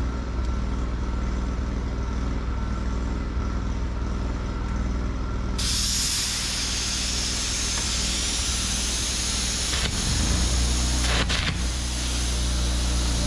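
Compressed air starts hissing from an air carbon arc gouging torch about five and a half seconds in and keeps blowing, over a steady low machine hum. Near the end there are a few short crackles as the carbon electrode's arc is struck against the steel spring perch.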